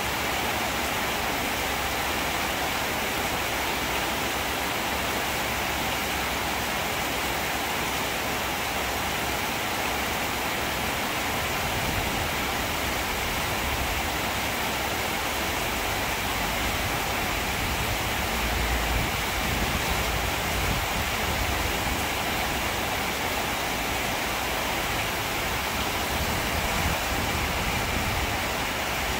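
Steady rain falling: an even, unbroken hiss. A low rumble swells underneath for several seconds past the middle.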